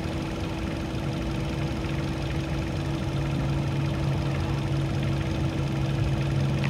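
A motor running steadily at idle: a constant low hum with a steady tone, joined by a second, lower tone about a second in.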